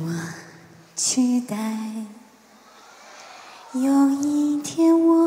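A woman singing a slow Mandarin ballad, held notes in short phrases separated by brief pauses.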